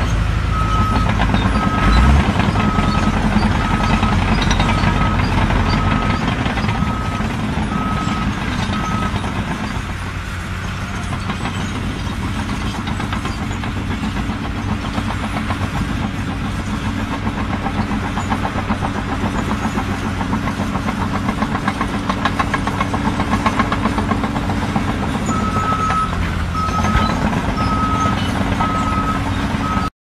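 A heavy vehicle's engine running steadily while its reversing alarm beeps evenly, about three beeps every two seconds. The beeping stops about nine seconds in and starts again near the end.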